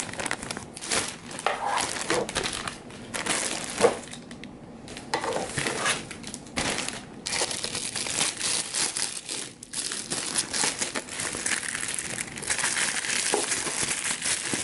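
Plastic courier mailer bag and the thin plastic wrapping inside crinkling and rustling as a parcel is opened and unwrapped by hand, with a few brief lulls.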